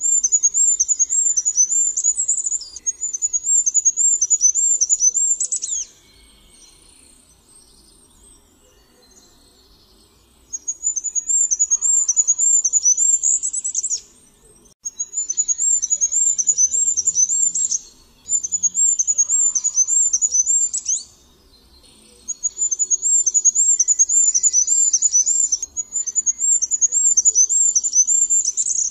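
Goldcrest singing: very high, thin song phrases of quickly repeated notes, each ending in a short flourish, given several times with brief pauses and one longer pause early on.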